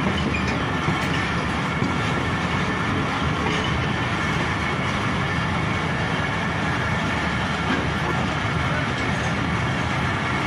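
Passenger train coaches running along the track, a steady, even rumble and rush of wheels on rails, heard through an open coach window.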